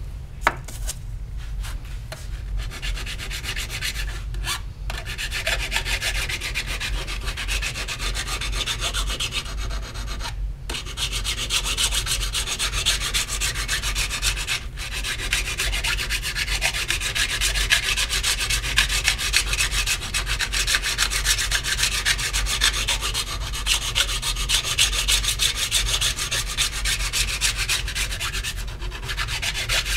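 A copper printing plate being rubbed by hand with an abrasive to clean and polish its surface: a fast, continuous back-and-forth scratching, with brief pauses a few times.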